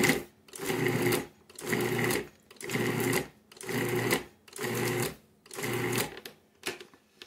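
An old Cuisinart food processor pulsed about seven times, roughly once a second, each burst the motor spinning up and the blade chopping chilled butter into flour and salt. This is the cutting-in stage of a pie crust, pulsing until the butter is the size of peas.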